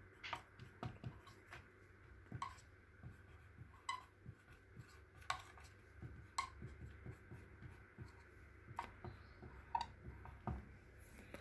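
Faint scratching and light taps of a marker pen writing on a whiteboard, in short irregular strokes with a few brief squeaks.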